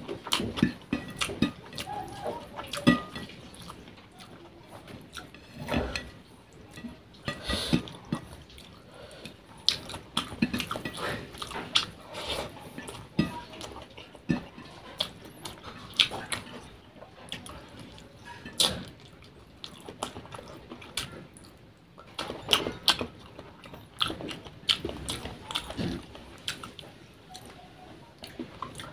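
Close-miked wet chewing and lip smacking of rice and fish curry eaten by hand, with fingers squishing and mixing rice on the plate between mouthfuls. The sounds are irregular short smacks and clicks.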